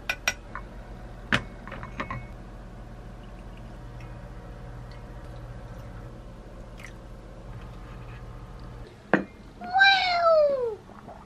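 A cat meows once near the end, one long call falling in pitch, after a few sharp clicks and knocks. A low steady hum stops just before the meow.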